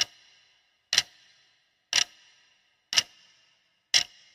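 Clock ticking once a second, each tick a sharp click with a brief ringing tail; five ticks in all.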